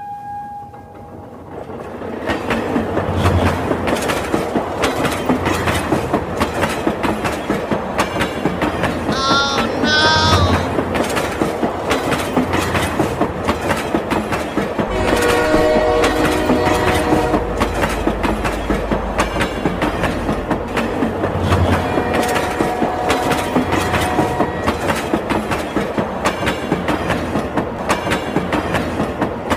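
Train running sounds: a steady, rapid clattering throughout. Short whistle toots come about nine to ten seconds in, and a horn sounds from about fifteen to twenty seconds, with a brief single-tone toot a little after that.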